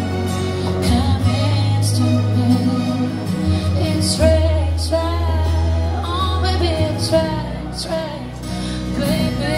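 A woman singing live into a microphone over a backing track with a steady bass line and drum beat, amplified through PA speakers.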